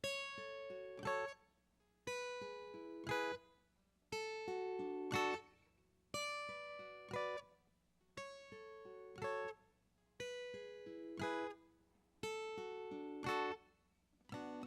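Acoustic guitar playing a song's instrumental intro: a short picked phrase of a few ringing notes, repeated about every two seconds, each ending in a sharp strummed accent and a brief stop.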